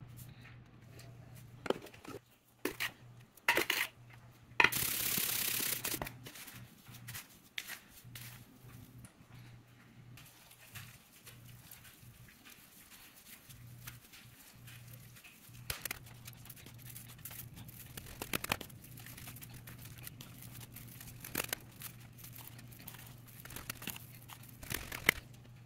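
Handling noises of seasoning a pork shoulder by hand: scattered rustles, rubbing and small clicks and taps on a metal sheet pan, over a low steady hum. A burst of rustling noise lasts about a second and a half, about five seconds in.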